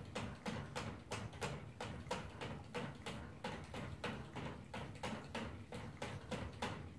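Toy poodle drinking by licking at the metal nozzle of a water bottle fixed to its crate: a steady, rhythmic clicking of tongue on nozzle, about three licks a second.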